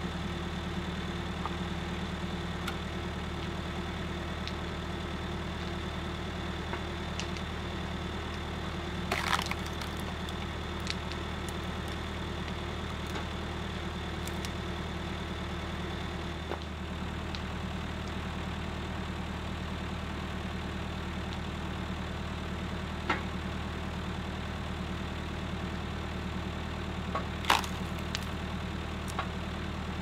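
Tractor engine idling steadily while it drives a hydraulic log splitter. A few sharp cracks of wood splitting come through it, one about nine seconds in and the loudest near the end.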